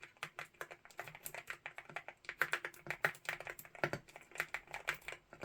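Typing on a gasket-mount wooden 65% mechanical keyboard with linear Akko V3 Piano Pro switches: a quick, irregular run of keystroke clacks, several a second.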